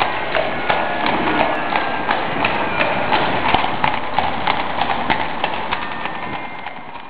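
A horse's hooves clip-clopping in a quick, irregular run of sharp knocks, fading down near the end.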